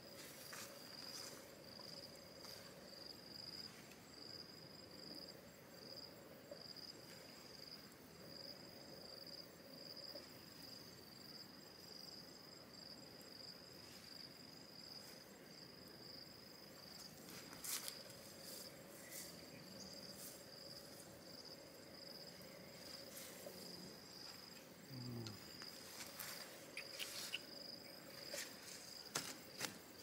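Faint, steady high-pitched insect trill, a cricket-like chorus, with a few sharp clicks and rustles, more of them in the last few seconds.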